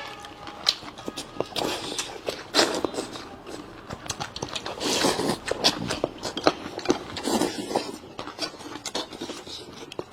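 A person eating rice noodles fast: irregular slurps and chewing noises mixed with sharp clicks.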